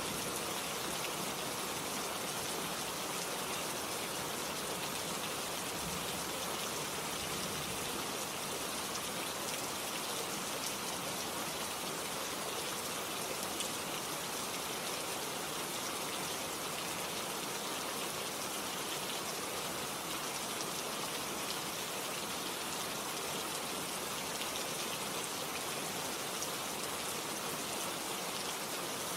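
Steady rain: an even hiss with the patter of many small drops.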